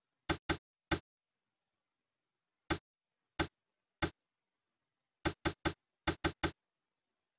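Mouse clicks while clicking through a computer program's on-screen buttons: about a dozen short, sharp clicks with silence between. Three come near the start and three are spread through the middle, then two quick runs of three near the end.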